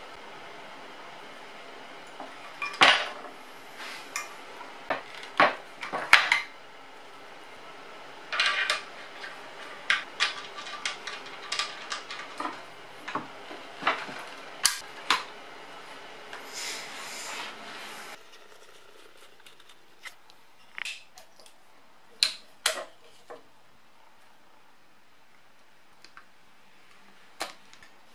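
Metal clinks and clatter of a blade change on a Bosch circular saw: arbor washers, nut and blade knocking against the saw's metal guard and base, in many short separate strikes. In the last third the clicks thin out to a few light taps.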